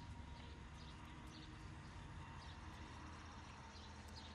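Faint outdoor background: a low steady hum with scattered faint high chirps and ticks.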